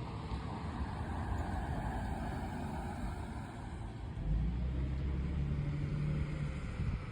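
A motor vehicle going by: a hiss of road noise, then a steady low engine hum that sets in about four seconds in.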